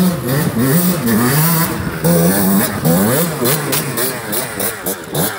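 Suzuki RM two-stroke dirt bike engine being revved up and down over and over, its pitch rising and falling about once a second, with quicker throttle blips in the second half, as the bike claws up a steep icy slope.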